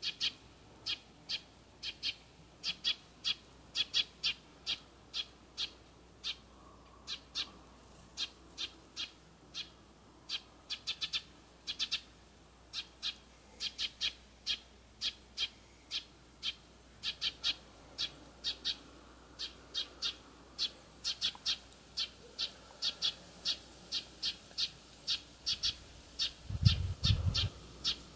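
A bird chirping over and over in short, sharp high calls, about two to three a second, in an irregular run. Near the end there is a brief low rumble, the loudest moment.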